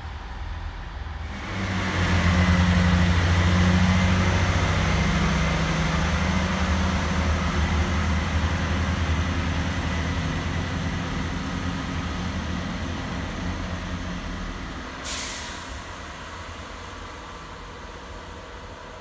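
Class 165 diesel multiple unit pulling away: its diesel engines rise to a loud, steady low drone about a second in, then slowly fade as the train draws off. A short hiss of released air comes near the end.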